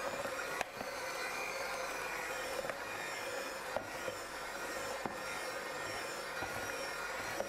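Electric hand mixer with dough hooks spinning up to speed and then running steadily with a whine, kneading a minced-meat and spinach filling in a plastic bowl. A few light knocks of the hooks against the bowl.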